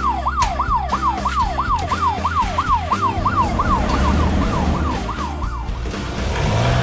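Electronic toy siren of a battery-powered BRIO police boat, a rapid wail that sweeps up and down about three times a second, growing fainter and stopping near the end.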